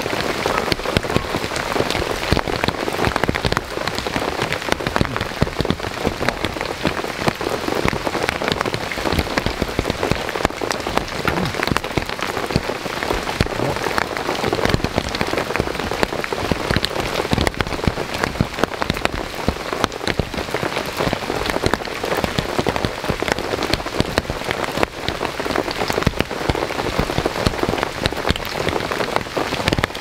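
Heavy rain falling steadily: a continuous hiss thick with sharp, close drop hits.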